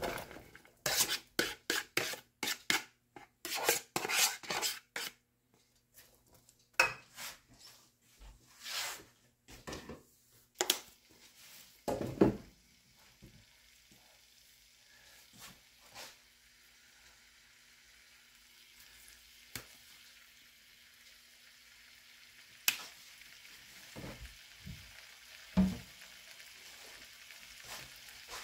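Diced potatoes, onions and green peppers landing in a hot oiled nonstick skillet and being spread with a spatula: a quick run of clatters and scrapes for the first few seconds, and a few more knocks after that. A steady frying sizzle follows and slowly grows louder, with a couple of knocks against the pan near the end.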